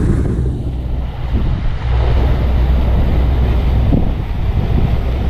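Wind buffeting the microphone over the steady low rumble of a fishing trawler's engine and the rush of its propeller wake as the boat steams along.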